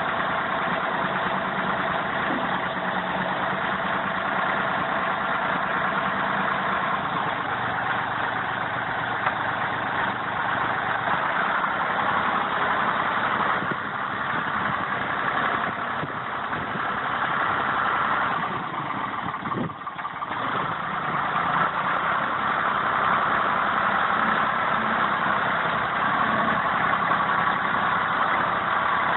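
Ford 540 tractor's three-cylinder diesel engine running steadily, with a brief dip about twenty seconds in.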